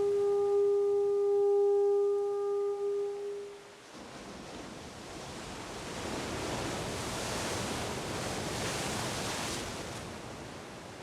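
A conch shell blown in one long, steady note, which stops about three and a half seconds in. A soft rushing swell follows, rising and then fading.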